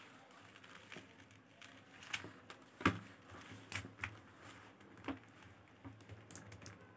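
Faceted beads clicking against each other as beadwork is handled and stitched together, a scatter of faint irregular ticks with the sharpest about three seconds in.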